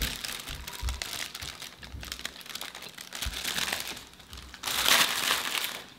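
Paper bag crinkling and rustling as a cookie is handled inside it, with a louder stretch of crinkling about five seconds in.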